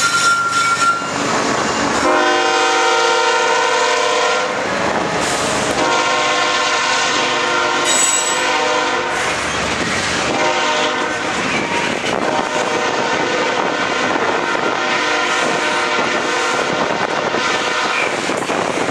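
A freight train's diesel locomotive horn sounding in several long blasts while a string of tank cars rolls past, their wheels clicking over the rail joints.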